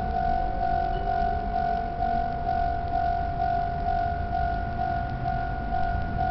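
Japanese railway level-crossing warning bell ringing in a steady, even pattern of about two dings a second, over a low rumble.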